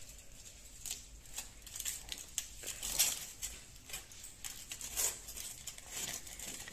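Scissors snipping through thin aluminium foil, the foil crinkling as it is cut: a run of irregular crisp snips and crackles.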